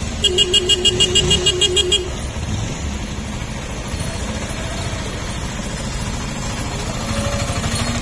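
A vehicle horn beeping in a rapid warbling pulse, about six beeps a second, for roughly two seconds, over the low rumble of an engine running.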